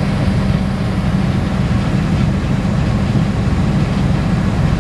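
Heavy diesel engine running steadily at a constant speed, a low, even hum.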